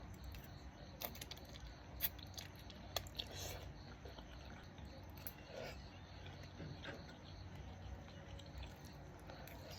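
Faint eating sounds: a person chewing noodles, with a few sharp clicks about one, two and three seconds in and small irregular mouth and utensil noises after.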